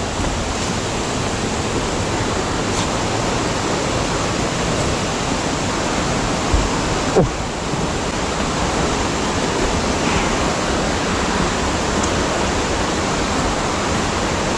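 Waterfall, a steady rush of falling water, with two brief bumps about halfway through.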